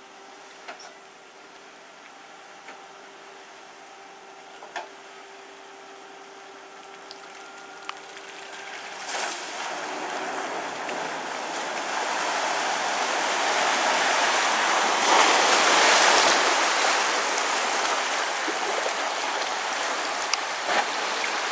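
Land Rover Discovery 2 V8 engine running low and steady as the vehicle creeps into a creek crossing. Then a rush of water and splashing builds as it wades through, loudest about two-thirds of the way in and still going near the end.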